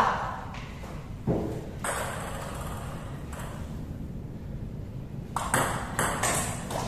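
Table tennis ball clicking off the paddles and the table during a rally. A few separate hits come in the first half, then a quicker run of hits in the last second and a half.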